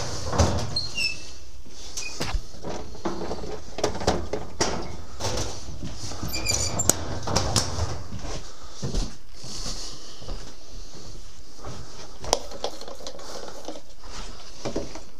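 Scattered clicks, knocks and a few brief high squeaks of tools and parts being handled while a motocross bike is taken apart, over a low steady hum.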